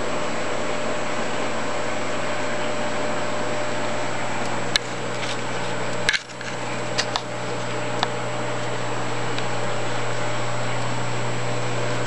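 Steady electric hum and hiss of aquarium pumps and filtration, with a strong low mains-type hum. A few sharp clicks and knocks come close together in the middle, briefly dipping the level.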